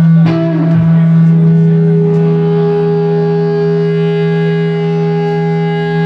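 Electric guitar played loud through an amp: a note struck about a quarter second in, then held notes ringing out over a steady low drone.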